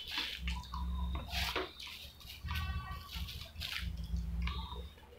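Close-up wet mouth sounds of someone eating soft medu vada by hand: repeated smacking chews, lip and finger smacks, with the plastic sheet on the plate rustling under the fingers.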